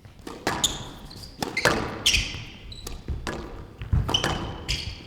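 A squash rally in a glass-walled court: the hard rubber ball cracks off rackets and walls in quick, uneven succession, with short high squeaks of court shoes on the wooden floor between the strikes.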